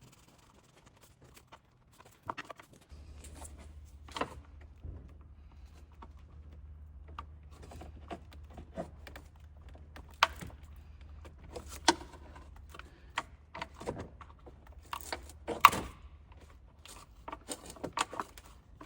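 Scattered clicks, taps and light rattles of plastic nuts being unscrewed and a plastic cover being handled in a car's engine bay, the sharpest knock late on. A steady low hum starts about three seconds in.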